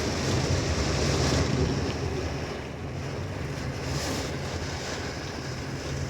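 Wind rushing and buffeting the microphone, with a low steady hum underneath; louder for the first two seconds, then easing a little.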